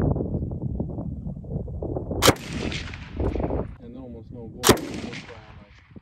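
Belt-fed machine gun fired in two single shots about two and a half seconds apart, each a sharp crack with a short ringing tail.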